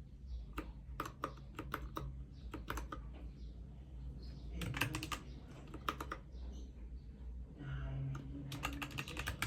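Typing on a Royal Kludge RK61 mechanical keyboard: irregular key clicks, with quicker runs of keystrokes about five seconds in and near the end.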